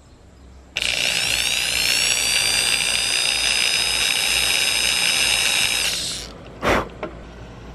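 Small electric drill starting under a second in, its whine rising in pitch as it spins up, running steadily for about five seconds and then winding down. It is followed by a single sharp knock and a lighter click.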